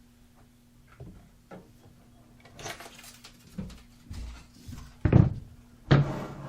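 Handling sounds of a few small knocks and rustles over a faint steady hum, then two louder thumps about five and six seconds in.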